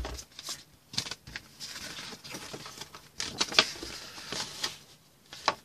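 Paper rustling as the pages of an instruction booklet are handled and flipped through, with a few light knocks from handling.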